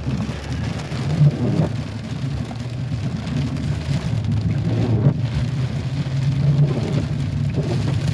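Heavy rain pelting a pickup truck, heard from inside the cab as it drives, over a steady low rumble of engine and road.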